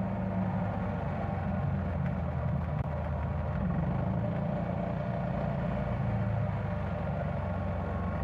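Yamaha Tricity 300 scooter's single-cylinder engine running steadily at cruising speed, heard from the rider's seat.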